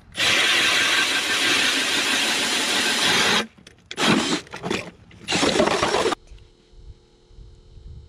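Power ice auger boring through ice, its blades grinding and throwing out shavings for about three seconds, then run again in two short bursts.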